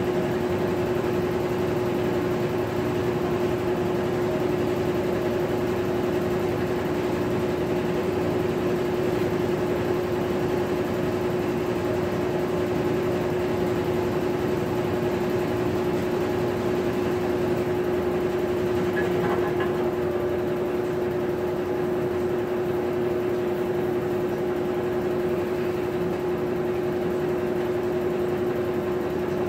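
Maytag top-load washing machine running, a steady motor hum with one constant tone that holds unchanged throughout.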